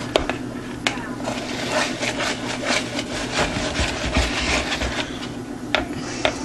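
Batter with Fruity Pebbles being stirred in a mixing bowl: a utensil scraping and rubbing the bowl in short, regular strokes, about two to three a second.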